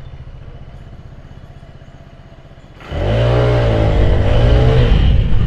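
FT6 scooter engine, fitted with a modified REVENO clutch, idling quietly, then revved hard about three seconds in, its pitch rising, dipping and rising again before falling back. No clutch chatter stands out as the clutch takes up: the take-off noise is gone.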